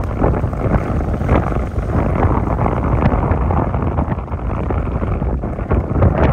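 Loud, gusty wind buffeting the microphone over the rush of rough, choppy seawater.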